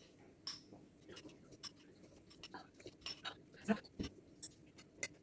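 A spoon and a small glass cup of soup making scattered light clicks and taps while the soup is sipped, with a louder knock about four seconds in as the cup is set down on the table.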